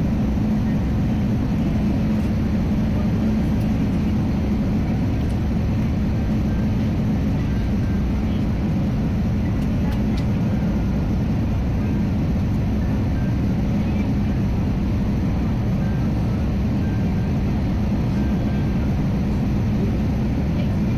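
Steady engine and airflow noise inside the cabin of an Airbus A320-family airliner descending on final approach, with a constant low hum.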